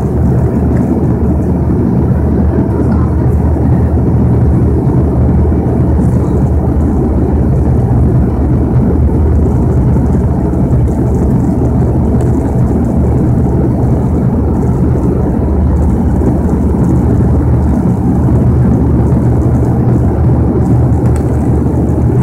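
Bombardier Dash 8-100 twin turboprop in cruise or descent, heard inside the passenger cabin: a loud, steady propeller and engine drone, a low hum with steady tones under a rushing noise.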